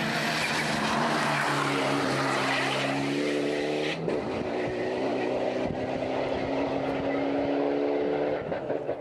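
Mitsubishi Lancer Evolution X rally car's engine accelerating hard, its pitch climbing steadily. About four seconds in the sound changes abruptly to another run of the car pulling away, its pitch rising again before it fades near the end.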